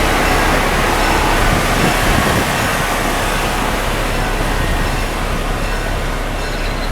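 Train running on rails: a steady, loud rumble and rattle of wheels and cars that eases slightly in the last couple of seconds.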